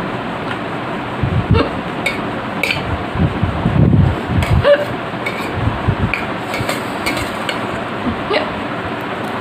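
A woman hiccuping repeatedly, about nine short hics at uneven spacing, brought on by eating very spicy food. A steady electric fan hum runs underneath.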